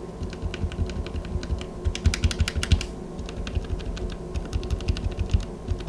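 Typing on an Epomaker TH80 mechanical keyboard with Gateron Pro Red linear switches, some of them with their keycaps pulled off, giving rapid keystrokes several a second.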